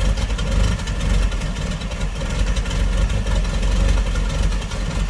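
Engine of a 1969 Dodge D100 (Fargo) pickup idling steadily with the hood up.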